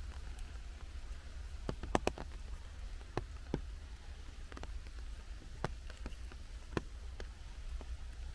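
Light rain in a forest: irregular single drops dripping and tapping, over a soft steady hiss and a low steady rumble.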